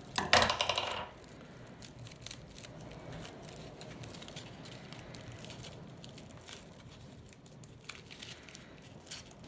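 Aluminium foil crinkling as it is handled and pressed into shape, with a loud burst of crackling in the first second, then faint, scattered crackles.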